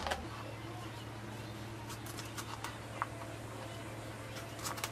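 Kitchen knife cutting an apple on a plastic cutting board: a few short, sharp clicks and taps as the blade meets the board, over a steady low hum.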